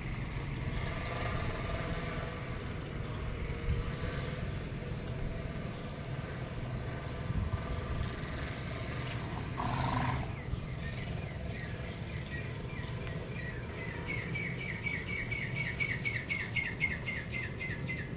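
A bird calling with a fast run of repeated rising chirps, about four or five a second, that grows louder in the second half, over a steady low outdoor rumble.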